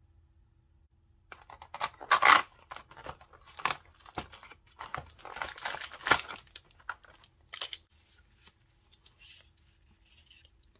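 The cardboard door of an advent calendar being torn open and a plastic sleeve crinkling as the paper contents are pulled out: an irregular run of rips and rustles, loudest about two seconds in.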